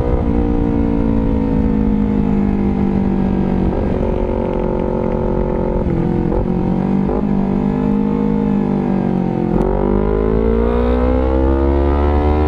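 Honda CBR250RR motorcycle engine running through an R9 GP Series aftermarket exhaust. The engine note sinks slowly with a few short breaks, then rises steadily as the engine is opened up again about three-quarters of the way in.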